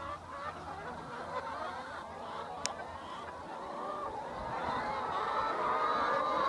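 A large flock of free-range brown laying hens clucking and calling together in a dense chorus that grows louder over the last few seconds. There is a single sharp click about two and a half seconds in.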